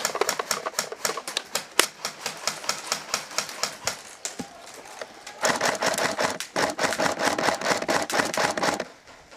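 Paintball and airsoft guns firing rapid clattering shots, with a dense steady stretch of fire from about five and a half seconds that stops shortly before the end.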